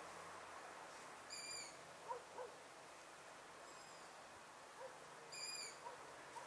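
A bird calling in the night: two short, high calls about four seconds apart, with a few fainter short notes between them, over a faint steady hiss.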